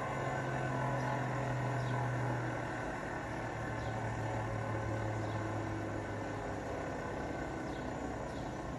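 Hotpoint washing machine on its last intermediate spin, the drum and motor running with a steady low hum over a rough rushing noise, the sound of worn drum bearings. The hum drops in pitch about two and a half seconds in and fades a few seconds later as the spin slows.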